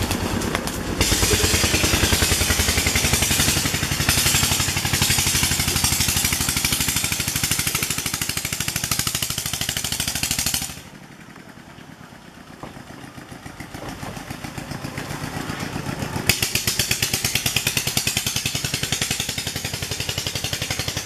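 Long-tail engine on a small wooden canal boat running with a rapid, even putter. It drops away suddenly about halfway through, grows louder again over a few seconds, then comes back at full strength.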